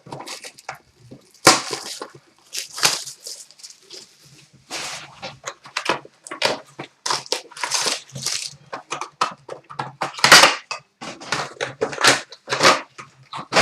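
Wrappers of 2013-14 Panini Titanium hockey card packs being torn open and crinkled, in many irregular short rustling bursts as the packs and cards are handled.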